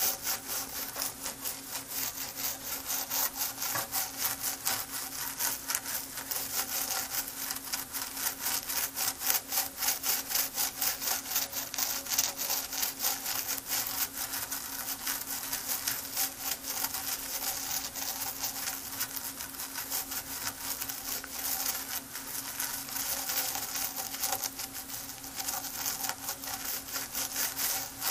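Toothbrush bristles scrubbing a vinegar-wet circuit board, rapid back-and-forth scratchy strokes going on without a break. It is the cleaning of corrosion from the board's solder side.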